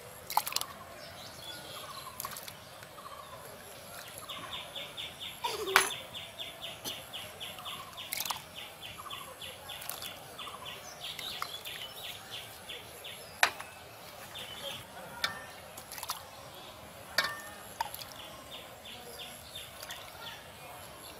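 Plastic ladle clinking against glass tumblers and the aluminium pot as thick kheer is spooned into glasses, a few sharp clinks apart. Behind it, a bird calls in a fast run of short high notes, about six a second, for several seconds and again near the end.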